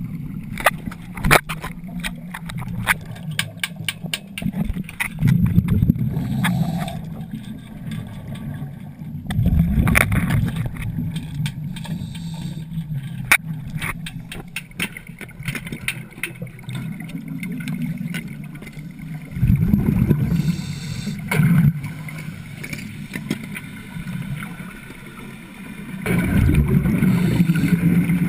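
Underwater wet stick welding: the arc crackles and pops steadily over a low underwater rumble. Louder rumbling surges come and go several times.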